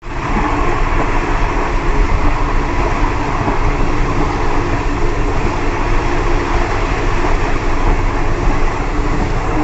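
Steady rolling noise of a moving express passenger train's steel wheels running over the rails, heard at the open rear door of the last carriage.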